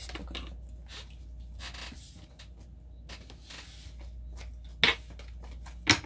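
Tarot cards being handled and shuffled: paper rustling and scraping with light taps, and two sharper clicks near the end.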